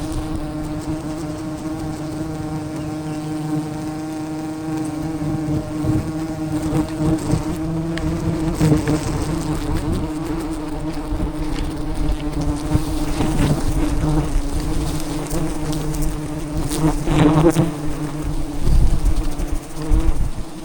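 A swarm of wild honeybees buzzing close by in a steady, dense drone, with a few knocks and rustles near the end.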